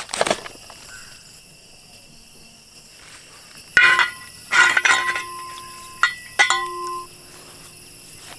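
A machete cracking through a split jackfruit at the start, then steady high insect chirring, and from about four seconds in four sharp metallic clinks that ring on briefly as the machete knocks against a metal basin of water.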